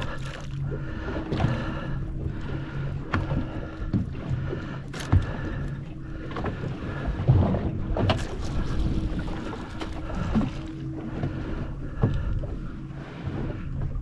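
Fishing boat at sea: a steady low mechanical hum from the boat, with water washing against the hull and a few sharp knocks about 5, 8 and 12 seconds in.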